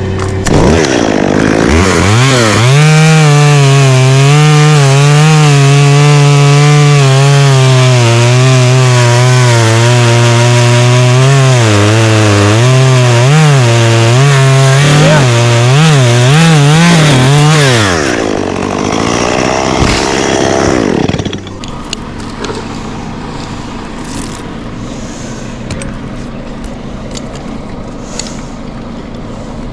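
Gas chainsaw revving up and cutting into wood, its engine note holding high and wavering under load for about fifteen seconds. It then drops back, and after a brief rev it falls to a much quieter steady hum.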